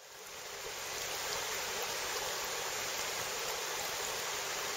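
Steady rush of a shallow river's current flowing over its bed, fading in over the first second.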